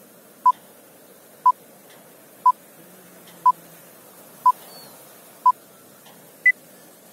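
Film countdown leader beeps: six short beeps of the same tone, one a second, then a seventh beep at a higher pitch, over a faint steady hiss.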